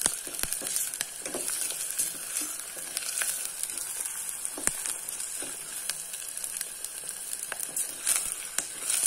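Chopped onion and garlic sizzling as they fry in hot oil in a stainless steel pot. A wooden spatula stirs them, and there are scattered light clicks.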